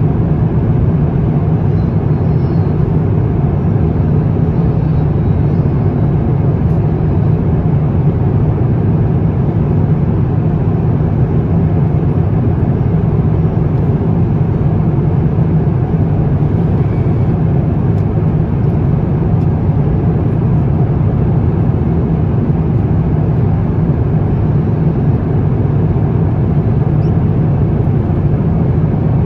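Steady cabin noise inside an Airbus A350-900 in cruise: an unbroken low rumble with a rush of air above it.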